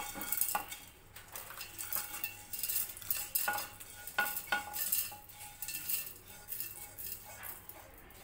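Roasted whole spices (cardamom pods, peppercorns, cinnamon bark) scraped out of a pan with a silicone spatula and tipped into a stainless-steel mixer-grinder jar: scraping and a scatter of small, irregular clinks and rattles against metal.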